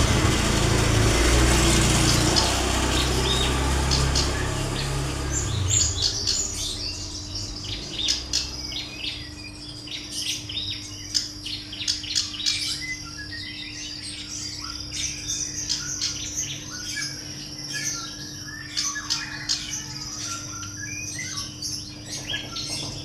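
Female black-browed reed warbler giving many short, high chirping calls, over a steady high insect drone. A loud low rumble covers the first five seconds.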